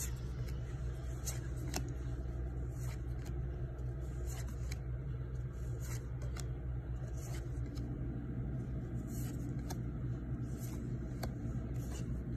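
Baseball trading cards being flipped through one at a time: short, soft slides and flicks of card against card, repeating every second or so, over a steady low hum.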